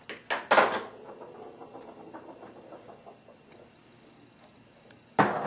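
Handling noise: a few sharp knocks and a clatter in the first second, faint scraping for a couple of seconds after, then a sudden loud rustle near the end.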